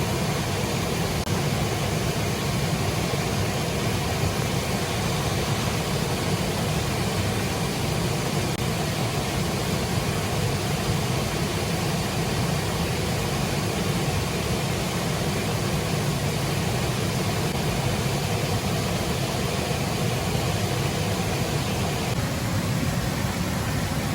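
Steady rain falling, an even rushing hiss.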